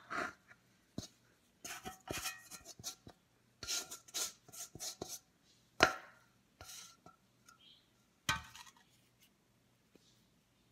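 Spatula scraping and tapping against a stainless-steel mixing bowl as bread dough is turned out of it, each tap leaving a short metallic ring. The taps come in irregular runs, with two sharper knocks past the middle.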